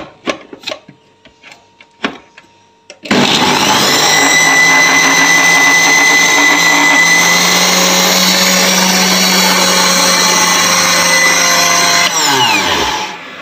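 Deluron electric blender switched on about three seconds in, its motor running steadily at full speed for about nine seconds while grinding mint and coriander leaves with green chillies, garlic and lemon juice into chutney, then switched off and spinning down with a falling pitch. A few light clicks and knocks before it starts.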